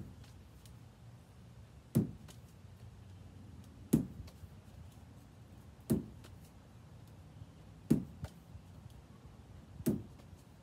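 Lacrosse ball dropping into the pocket of a lacrosse stick head, a short sharp thud about every two seconds as it is tossed and caught in a steady rhythm.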